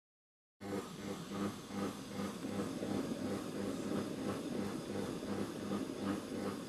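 Silvercrest Monsieur Cuisine food processor running in steam mode at stirring speed 1: a steady motor hum with a regular pulsing, starting about half a second in.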